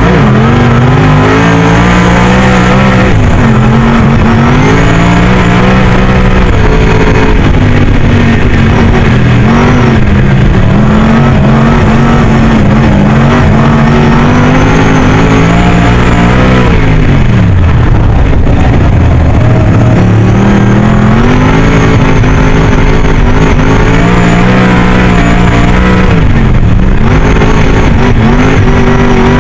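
Superstock race car's V8 engine at racing speed, heard from inside the cockpit. Its revs run high and fall away sharply twice, deepest about halfway through and again near the end, each time picking back up: lifting off for the turns and accelerating out of them.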